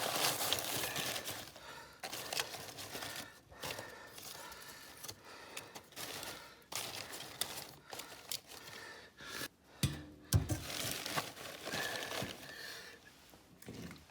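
Paper crumpling and crinkling with scattered small clicks, typical of laying a fire in a wood stove. There is one dull knock about ten seconds in.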